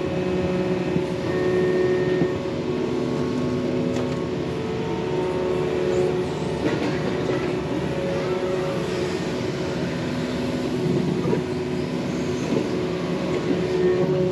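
Yanmar mini excavator working, its engine running steadily under load with a hydraulic whine whose tones shift as the controls are worked, and a few faint knocks about midway.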